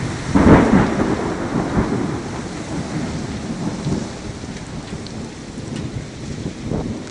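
Heavy rain falling after the tornado, heard through an old cell phone's microphone, with a loud low rumble about half a second in that fades over the next second or so and a smaller rumble near the end.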